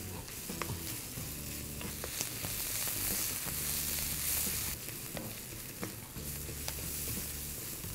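Sliced onions sizzling as they sauté in hot sesame oil in a stainless steel kadai, stirred with a wooden spatula that gives light scrapes and clicks against the pan. The sizzle swells a little midway through, over a low steady hum.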